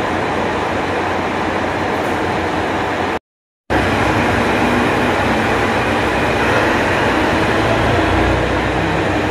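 Steady drone of a stationary JR Shikoku KiHa 185 series diesel railcar at the platform, its engine idling and its air-conditioning running. The sound drops out for about half a second roughly three seconds in, then the same drone carries on.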